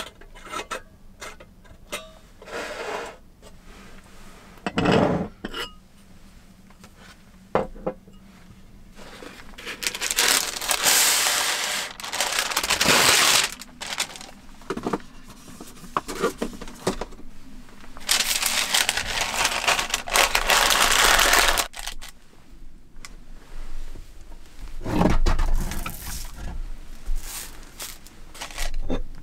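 Paper sheets rustling and crinkling loudly in two long stretches as they are handled and pressed into a ceramic bowl, between small clicks and clinks of things being handled and set down on a wooden table.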